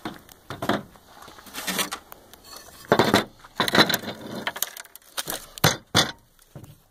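Shattered porcelain floor tile pieces and a thick HDPE slab being handled on a plastic folding table: a string of separate clinks, scrapes and knocks.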